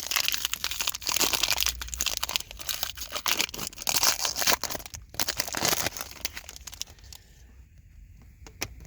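Trading-card pack wrapper crinkling and tearing as it is opened and handled, a dense crackling rustle that dies down for the last couple of seconds.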